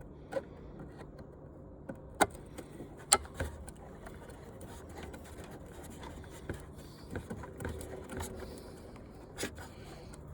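A few sharp clicks and cracks with light scraping as screws are worked loose from an old television's plastic housing, over a low steady hum.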